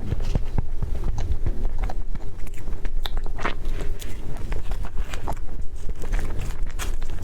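Close-up eating sounds: a person biting and chewing food, with scattered small clicks and crackles.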